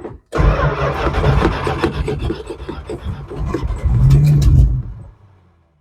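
Starter motor cranking the 1980 Dodge B300 motorhome's engine through the newly fitted ignition switch: a rough grinding with an even beat of compression strokes. Around four seconds in a low note rises as the engine nearly catches, then it stops about a second later.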